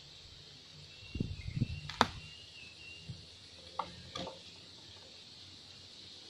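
Handling noises while fishing: a few soft thumps, then a sharp click about two seconds in, and two lighter clicks later on, with a faint high thin call in the background.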